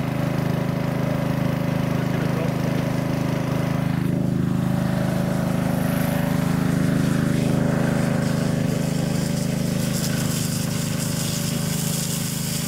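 Small gasoline engine of a portable fire pump running steadily at constant speed, driving water through the fire hoses.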